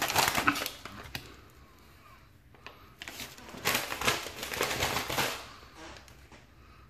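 Plastic mailing bag crinkling and rustling as it is handled and pushed aside. Two spells: a short one at the start and a longer one from about three seconds in, with a quiet gap between.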